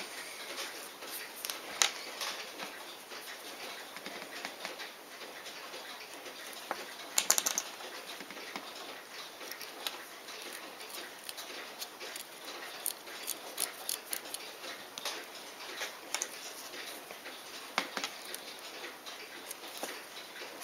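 Irregular small clicks and taps of tweezers, tiny screws and fingers handling a watch case and movement, with a louder cluster of clicks about seven seconds in, over a faint steady hiss.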